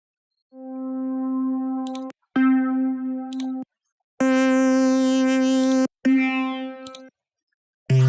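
Synthesizer presets in FL Studio's FLEX plugin, auditioned one after another: a single held note sounds about five times, each a second or two long with short gaps, and each in a different timbre. The first swells in softly, a later one fades away, and the last sits lower in pitch.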